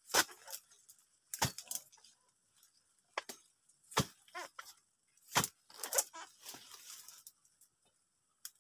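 Irregular sharp knocks with crackling and rustling of dry oil palm fronds and stalks, from harvesting work at a young oil palm. There are about six knocks, the loudest near the start and around the middle.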